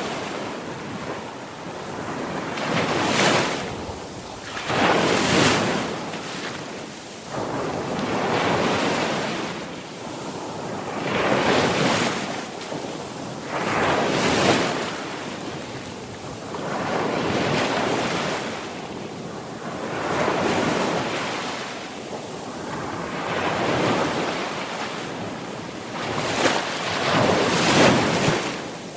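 Sea waves breaking and washing up, rising and falling in a surge about every three seconds.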